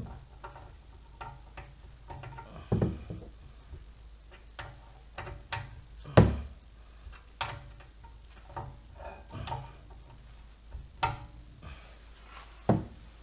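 Irregular knocks and clunks of hand tools, a breaker bar and socket being handled and set against the rear hub bolts, with the loudest knocks about six seconds in and near the end.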